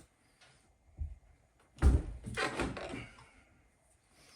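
A 2016 Dodge Charger's door and its frozen, freshly greased latch thunking: a soft knock, then a heavy clunk with a second of rattle after it, as the latch fails to catch.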